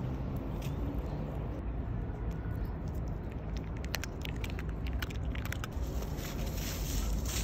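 Steady low outdoor rumble, with a run of dry crackling clicks in the middle. Near the end comes a dense, dry rustling scratch: a small poodle kicking up dry fallen leaves and soil with its paws.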